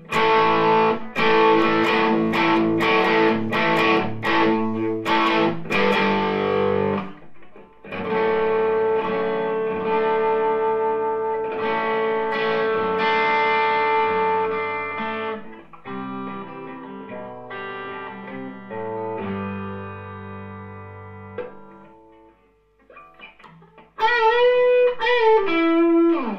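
Electric guitar played through an overdriven amp: rhythmic chord stabs for about seven seconds, then held, ringing chords, then a run of single notes. Near the end comes a bent note with vibrato that falls away.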